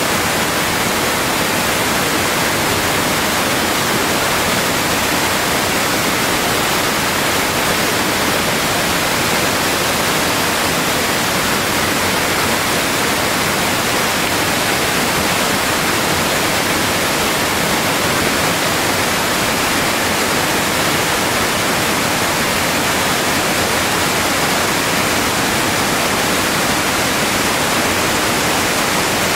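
Waterfall pouring and splashing over rock boulders, a loud, steady rush of water.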